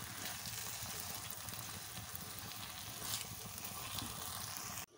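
Thick tomato sauce sizzling in a hot wok while a spatula stirs it, scraping the pan now and then. The sizzle cuts off suddenly near the end.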